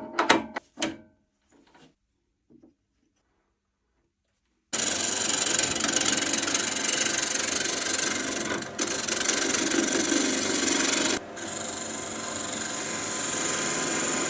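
Near silence, then about five seconds in, wood spinning on a lathe begins to be cut with a turning tool: a loud, steady scraping, rasping noise. It dips briefly around the ninth second and drops somewhat in level after about eleven seconds.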